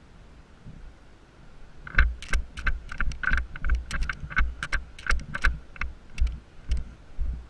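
Footsteps on the forest floor, dry leaves and twigs crunching underfoot at about two steps a second, starting about two seconds in.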